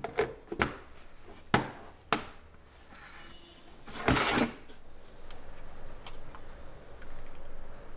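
Hard objects knocked and set down: four sharp clicks in the first two seconds or so, then a short hissing burst about four seconds in and a few faint ticks.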